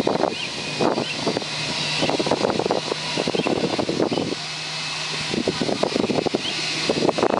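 Parked Airbus A320 airliner giving off a steady low hum and a high whine, with gusty wind buffeting the microphone throughout.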